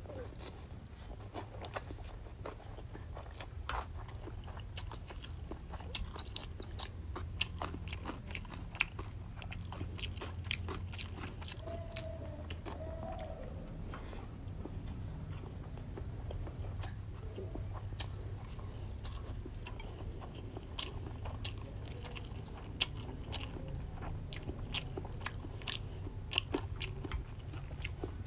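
A person eating fried rice noodles and crunchy vegetables close to the microphone: slurping noodle strands, then chewing and biting with many short crunches and clicks. A steady low hum runs underneath.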